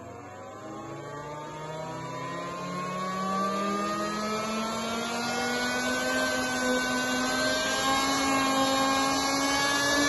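Two Sanyo Denki San Ace 172 12 V DC fans spinning up: a whine with several tones climbing together, and the rush of air getting louder as they gather speed.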